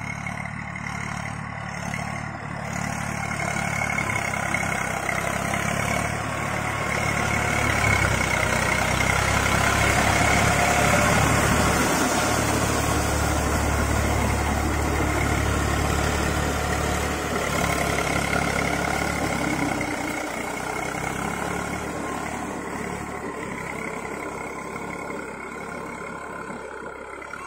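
Eicher 380 40 HP tractor's diesel engine running under load as it pulls a rotavator through wet paddy-field mud. It grows louder toward the middle as the tractor passes close by, then fades as it moves away.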